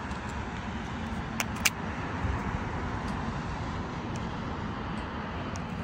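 Steady outdoor background rumble like distant road traffic. About a second and a half in come two short clicks a quarter second apart, from the small Chuzhao digital TLR camera being handled and its buttons pressed.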